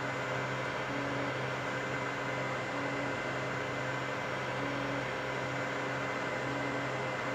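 3D printers at work: a steady hum of cooling fans and stepper motors. A short, slightly higher motor tone comes back about every two seconds as the print head makes its moves.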